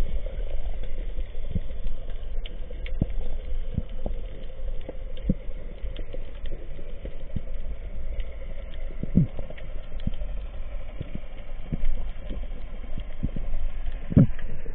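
Underwater sound picked up by an action camera in its housing: a steady low hum with scattered clicks and crackles, and a louder knock about nine seconds in and another near the end.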